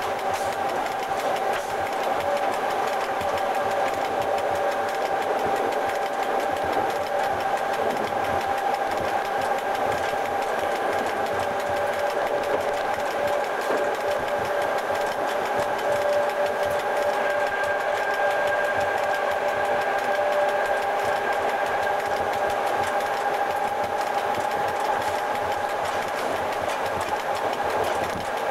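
Running noise of an FS E.656 'Caimano' electric locomotive heard from inside its cab while underway: a steady mechanical drone with a constant whine, joined for a while in the middle by a second, lower whine.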